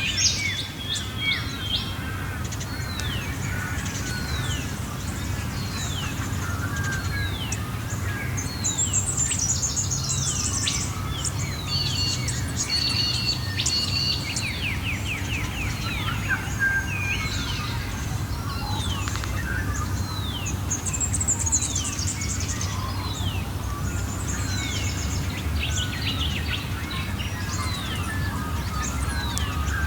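Several Australian wild birds singing together, one repeating a falling whistle about once a second among faster high trills and chirps, over a steady low rumble.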